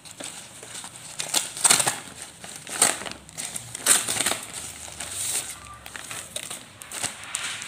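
Crumpled paper and plastic courier mailers crinkling and rustling as they are handled and shifted, in irregular bursts, the loudest about two, three and four seconds in.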